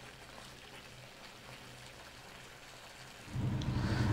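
Thick pav bhaji masala simmering in a kadai, faintly bubbling and popping. About three seconds in, a much louder steady low hum starts, along with the scrape of a spatula stirring the pan.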